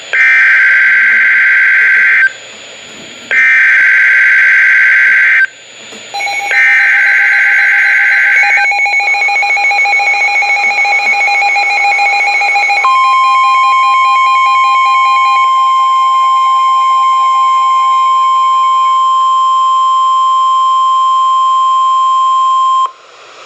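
Emergency Alert System SAME header: three screeching data-tone bursts about two seconds each, with a second's gap between them. Then the attention tones: a lower alarm tone that fades out, overlapped from about halfway through by a steady single-pitch NOAA weather-radio alarm tone that holds for about ten seconds and cuts off just before the end. Together they signal a flash flood warning.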